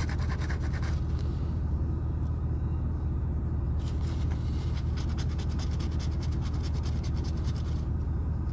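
A coin scraping the scratch-off coating from a lottery ticket in rapid, even strokes, once in the first second and again from about four to nearly eight seconds in. A steady low rumble from the car lies underneath.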